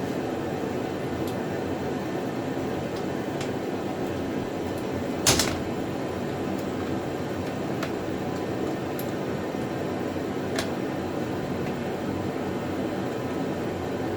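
Metal parts of a welding cart handled during assembly, giving scattered light clicks and one louder clank about five seconds in, over a steady background hum.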